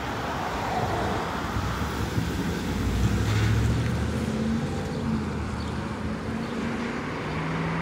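Small school bus engine pulling away from a stop, the engine note building and loudest about three seconds in, then running on steadily as the bus drives off.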